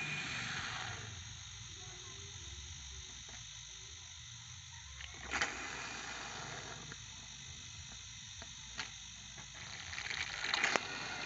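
Second-hand refrigerator compressor running as an oil suction pump, a steady low hum with a faint liquid sound, broken by a few short knocks about five seconds in and near the end.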